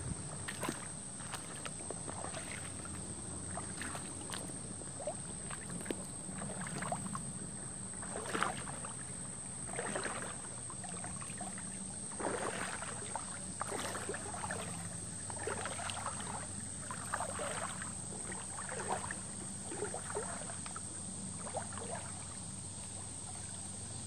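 Creek water sloshing and splashing in irregular surges, every half second to a second or so, over a steady high-pitched insect drone.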